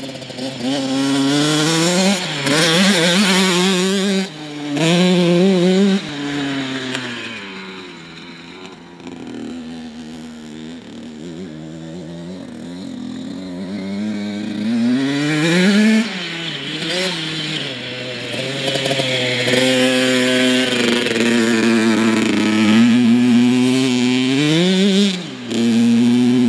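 Dirt bike engine revving hard, its pitch climbing and dropping again and again as the rider works the throttle and shifts. It grows quieter for several seconds in the middle as the bike moves off, then comes back louder.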